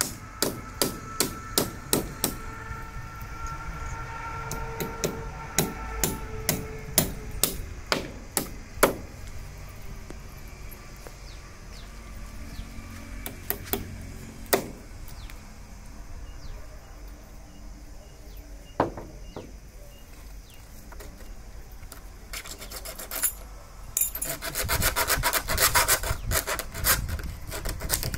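Small hammer tapping nails into a plastered wall to fix clamps holding a PVC conduit pipe, about two sharp blows a second for the first nine seconds, then a few scattered taps. Near the end comes a few seconds of rapid rasping scrapes.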